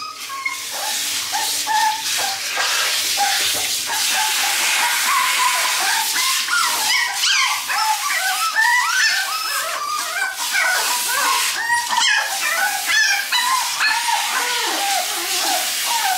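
Toy poodle puppy whimpering and yelping in short, high cries, one after another, in distress at being bathed, over the steady hiss of a handheld shower head spraying water on it.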